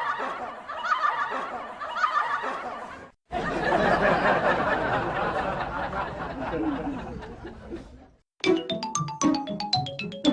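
A run of separate cartoon sound effects from an old animation studio library. First a wavering sound repeats for about three seconds. After a short gap comes a longer noisy effect that fades away, and after another gap a quick series of plinking musical notes.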